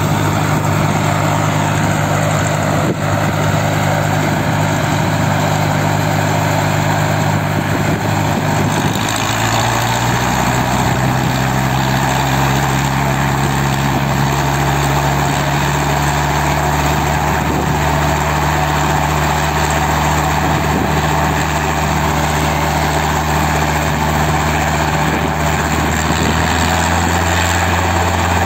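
Small two-seat piston helicopter running on the ground with its main rotor turning, engine and blades making a steady drone ahead of lift-off. About nine seconds in the pitch shifts, then slowly rises.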